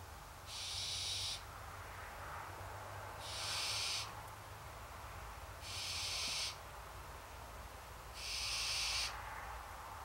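Barn owl giving four hoarse hissing calls, the snore-like food-begging call of a hungry barn owl, each just under a second long and about two and a half seconds apart.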